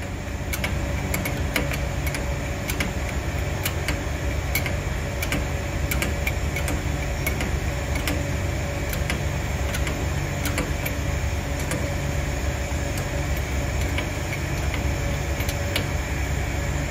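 Air-driven hydraulic overload pump of a power press running on compressed air, stroking with a regular sharp click about one and a half times a second over a steady low hum, as it draws up oil and builds pressure.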